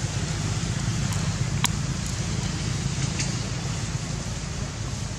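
Steady outdoor background noise, a low rumble with a hiss over it, broken by a few faint sharp clicks, one about a second and a half in.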